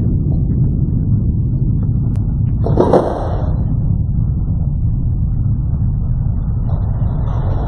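Steady low rumbling noise, with a short rustling burst about three seconds in.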